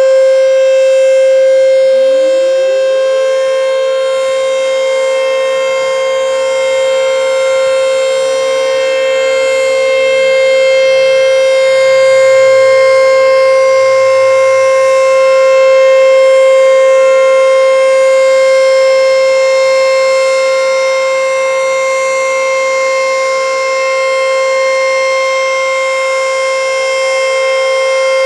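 ACA Screamer S-5 outdoor warning siren sounding a loud, steady single tone at full speed, its loudness swelling and dipping slowly. About two seconds in, a second, slightly lower tone winds up and holds alongside it.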